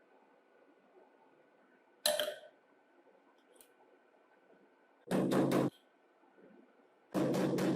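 A single sharp knock with a brief ring, then two short runs of quick repeated knocks or rattles, the second one longer.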